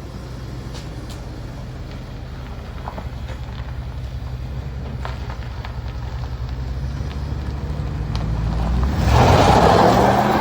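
1998 Dodge Dakota's 5.2 L V8 running after a fresh oil change, a low steady hum that slowly grows louder, then a loud surge with rising pitch near the end.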